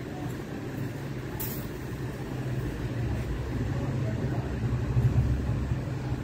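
Steady low mechanical hum that swells a little about five seconds in, with a single sharp click about a second and a half in.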